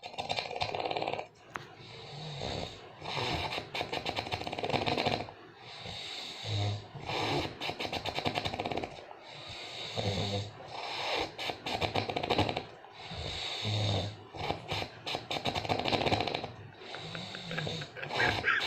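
A person snoring very loudly in an unusual, strange way: a long rattling, fluttering snore comes about every three to four seconds.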